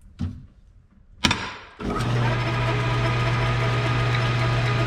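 A sharp clack about a second in, then the belt-driven metal lathe starts up and runs steadily with a low, even motor hum.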